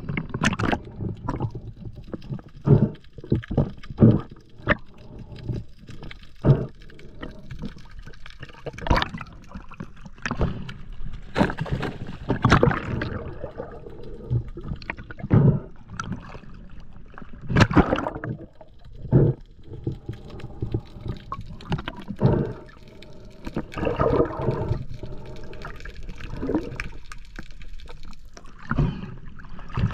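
Water sloshing and gurgling around a spearfishing diver's camera, in irregular bursts every second or two.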